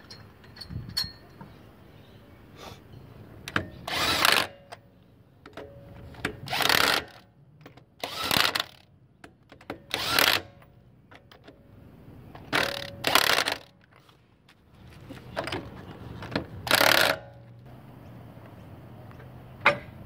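Impact wrench rattling in about seven short bursts, each under a second, as it runs down and tightens a wheel's lug nuts.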